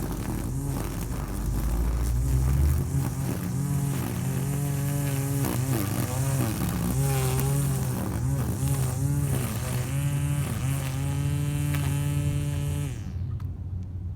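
Small gas-engine grass cutter running and cutting grass, its engine pitch rising and falling with the load and throttle. The engine cuts off about a second before the end.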